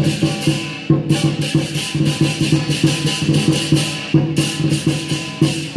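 Lion dance percussion: a Chinese drum beaten in a fast, steady rhythm with crashing cymbals on the beats.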